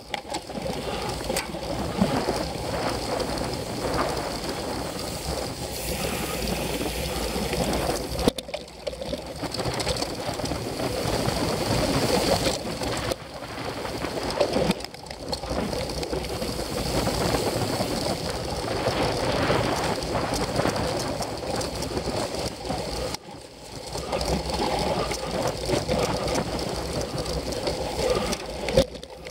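Cyclocross bike ridden over bumpy grass, heard from a camera mounted on the bike or rider: a steady rattle and rumble of the bike and tyres over rough ground, dipping briefly twice.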